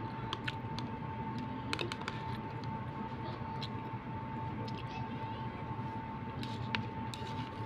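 Metal spoon clicking and scraping against a plastic cup of fruit salad while she eats, in scattered light clicks, over a steady background hum with a single high tone.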